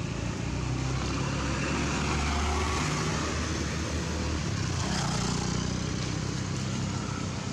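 A motor vehicle's engine running, a steady low drone whose pitch shifts slightly, over a broad background hiss.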